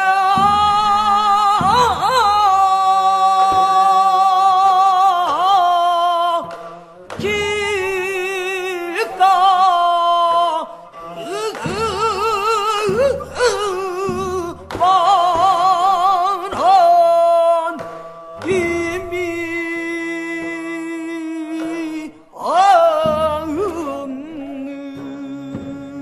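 Music: a solo voice sings long held notes with vibrato and slides between them, in phrases of a few seconds each, over a low accompaniment.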